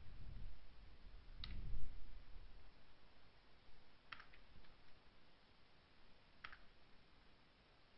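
Computer mouse clicks: a single click, a quick double click a few seconds later, then one more, over a faint low rumble in the first couple of seconds.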